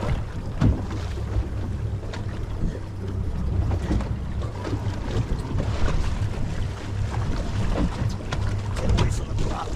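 Wind buffeting the microphone on a boat: a steady low rumble with scattered knocks and clicks, a few louder ones near the end.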